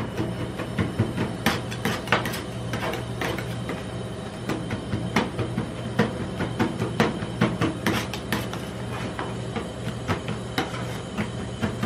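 Two metal spatulas chopping and scraping ice cream mixture on the steel plate of a rolled-ice-cream cold plate, in quick, irregular taps and clacks, over a steady low hum.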